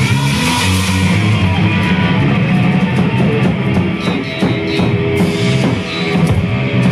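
A live metal band playing loudly, with distorted electric guitar and a pounding drum kit, recorded from within the crowd.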